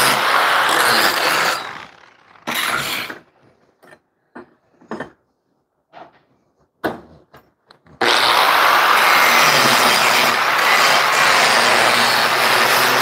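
Angle grinder grinding a repaired bus door hinge clamped in a vise to smooth it for a cleaner finish. It stops after about two seconds, and a few separate metal clicks and knocks follow as the part is handled. The grinder then starts grinding again about eight seconds in.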